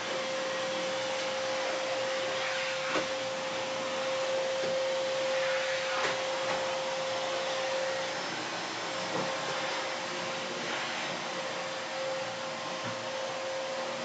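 Vacuum cleaner running steadily: a constant whine over a rushing hiss, the whine dropping out briefly a little past halfway, with a few light knocks along the way.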